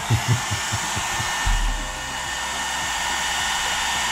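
Handheld hair dryer running steadily, blowing hot air onto a snow globe's wooden base to soften the glue that holds the globe.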